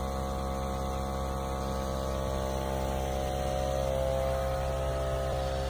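BMW M340i's 3.0-litre turbocharged inline-six idling steadily.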